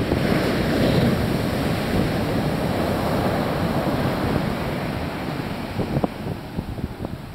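Surf breaking on a sandy beach: a wave crashes about as the sound begins and its wash slowly fades, with wind rumbling on the microphone and a few short knocks near the end.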